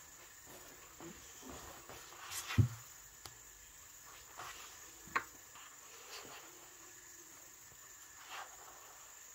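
Unresponsive Magic YoYo's ball bearing spinning as the yoyo sleeps on its string: a faint, steady, high thin whine. A few scattered knocks, the loudest about two and a half seconds in and a sharp click about five seconds in.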